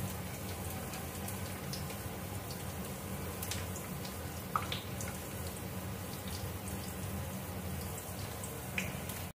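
Hands squeezing and mixing spice-coated chicken pieces in a steel bowl: soft wet squelches and a few small clicks over a faint steady hiss.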